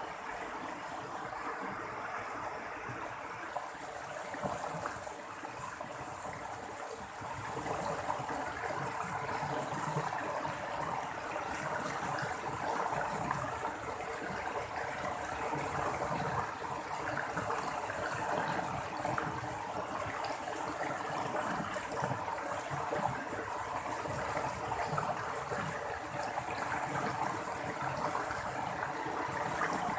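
Running water babbling and splashing steadily over stones in a small stream, a little louder from about a quarter of the way in.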